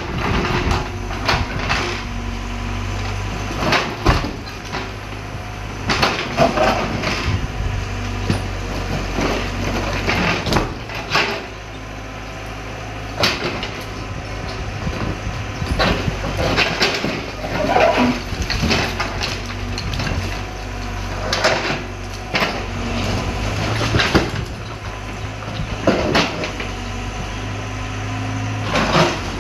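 Excavator's diesel engine running steadily while its steel bucket breaks and shoves concrete slabs and brick rubble, with frequent knocks and crashes of concrete and falling bricks.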